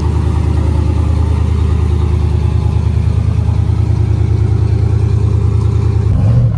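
Ford Bronco prerunner's engine idling steadily. Near the end the engine note steps up and begins to rise as it revs.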